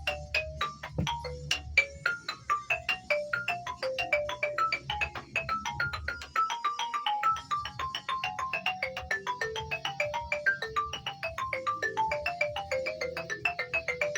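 Mallet percussion played in a quick melodic run, about five short ringing notes a second wandering up and down in pitch, over a low steady bass that drops out briefly a little past the middle.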